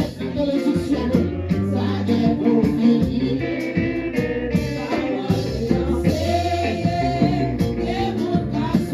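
Gospel praise singing: several voices singing into microphones over steady instrumental accompaniment with a bass line.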